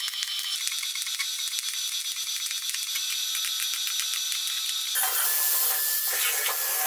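Stick-welding arc crackling as a steel tab is welded onto a steel wheel rim. About five seconds in it changes suddenly to the louder, steady noise of a cordless drill spinning a wire brush against the steel.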